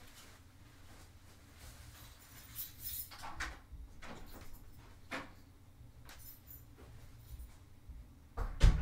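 Scattered faint knocks and clicks from someone moving about in another part of the room or house, over a low steady hum, with one louder thump near the end.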